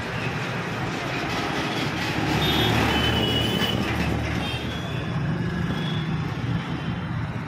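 Road traffic running steadily, with a truck passing that is loudest from about two to four seconds in. A few short high-pitched tones sound around the middle.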